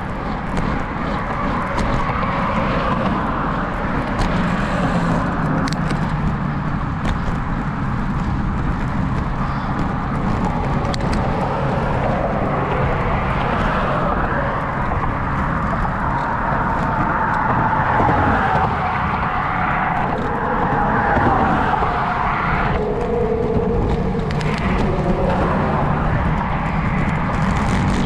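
Road traffic heard from a bicycle: cars going by, one with a falling pitch a little past the middle, over steady wind noise on the microphone.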